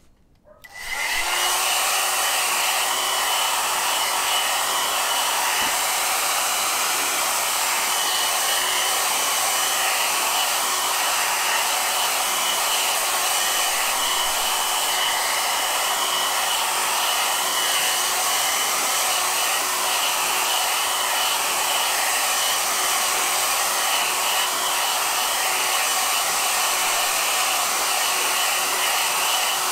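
Handheld hair dryer switched on about a second in and running steadily, blowing air to dry a wet watercolour wash. An even rush of air with a faint steady motor tone under it.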